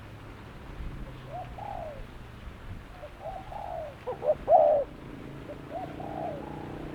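Spotted dove cooing: four or five short, arched coo phrases in a row, the loudest about four and a half seconds in.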